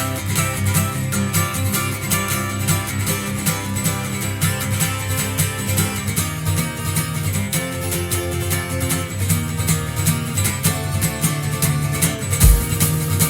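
Instrumental rock intro: fast, driving acoustic guitar strumming over bass, with a loud low drum hit near the end.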